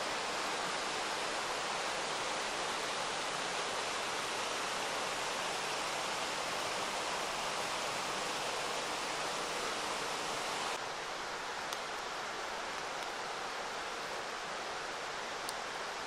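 Rocky mountain river flowing over stones and shallows, a steady rush of water. It drops a little in level about two-thirds of the way through, with a couple of faint ticks near the end.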